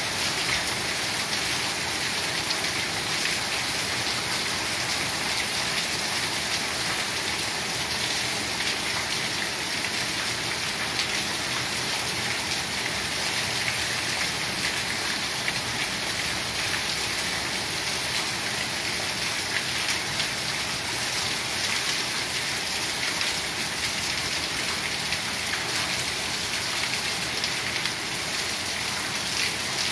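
Heavy rain pouring steadily: a dense, even hiss of falling drops that holds the same level throughout.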